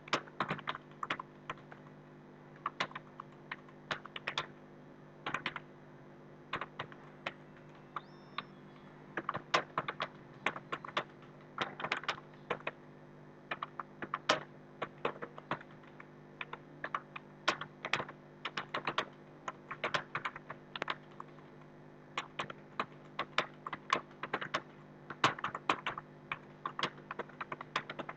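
Computer keyboard being typed on steadily during a timed typing test: a fast, uneven patter of keystroke clicks in quick runs with brief pauses, over a low steady hum.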